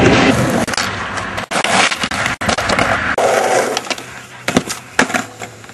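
Skateboard wheels rolling over concrete, loud at first and then quieter, with several sharp clacks of the board hitting the ground.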